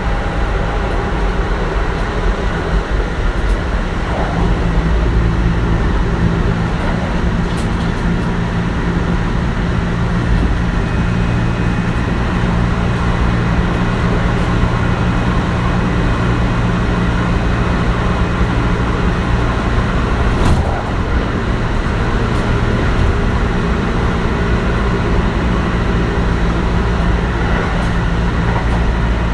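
Kintetsu 1420 series electric train with Mitsubishi GTO-VVVF drive running, heard from inside the car: steady wheel and running noise with faint steady tones, and one sharp knock about twenty seconds in.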